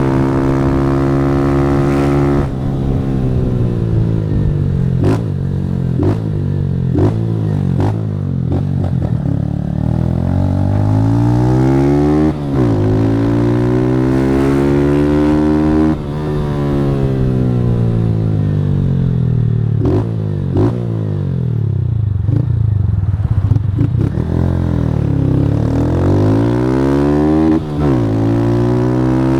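Motorcycle engine with a Fortuna Trioval aftermarket exhaust, ridden hard: the engine note climbs and falls again and again as it revs up and eases off through the gears, with several sharp clicks along the way.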